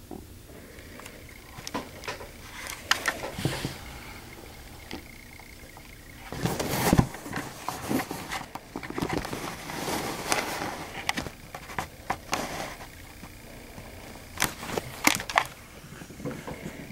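Irregular clicks, knocks and rattles of things being handled on a tabletop, with a denser clatter about six to seven seconds in and a few sharp clicks near the end.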